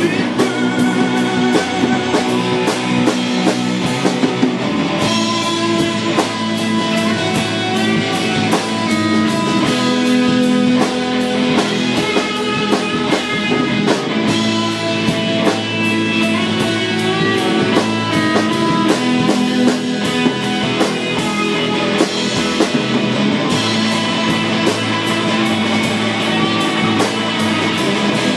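Live rock band playing an instrumental passage: a Stratocaster-style electric guitar picking a melody over drums, steady and loud throughout.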